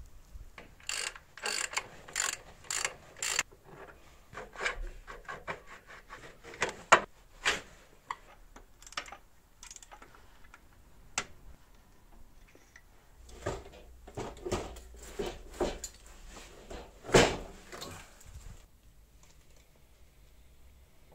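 Irregular metallic clicks and knocks from dismantled Ural motorcycle parts being handled and worked with hand tools. They come in clusters, with a sharp loud knock about a third of the way in and another late on.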